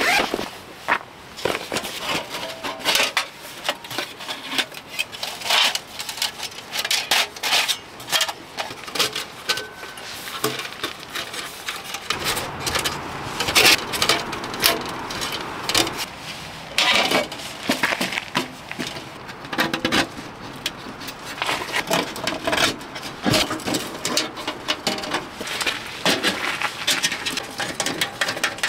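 Pomoly camping wood stove being unpacked from its carry bag and assembled by hand: a run of irregular clinks, knocks, scrapes and rustles from the stainless-steel stove parts and the bag.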